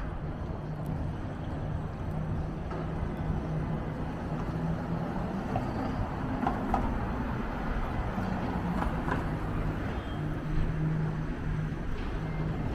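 City street traffic: a steady low rumble of passing cars and trucks, with a low engine hum that drops out for a few seconds midway and then returns.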